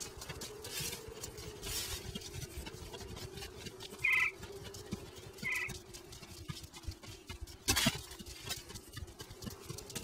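Animated-film sound effects: two short high squeaks about four and five and a half seconds in, over a low steady hum and scratchy crackle, with a sharp knock near eight seconds.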